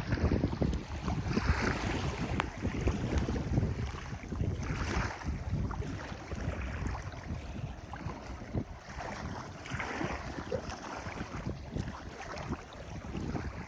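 Wind buffeting the microphone in gusts, with sea water washing and hissing in swells every few seconds.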